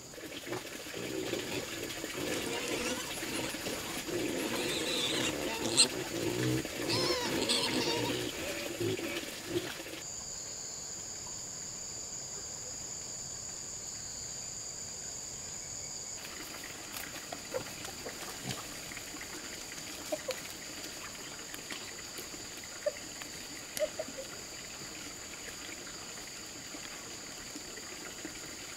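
Outdoor ambience with a steady high insect drone throughout. For the first ten seconds busier animal or bird calls and water sounds lie over it; these stop abruptly, leaving the drone with a faint water trickle and occasional small clicks.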